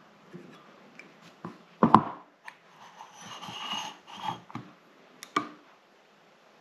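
Small metallic clicks and taps as a piston ring is worked down toward the lower groove of a piston with needle-nose pliers, with one sharp, louder click about two seconds in and a brief rustle in the middle.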